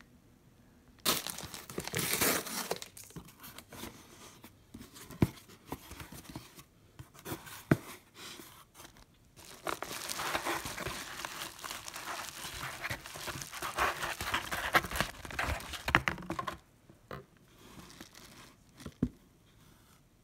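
Plastic packing wrap crinkling and rustling as it is handled and pulled out of a cardboard box, with a few sharp knocks in between. The crinkling stops well before the end, leaving only a couple of light knocks.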